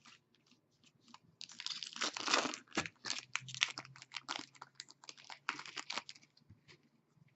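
Trading cards handled in the hands: a run of scraping, crinkling and clicking noises from about a second and a half in until near the end.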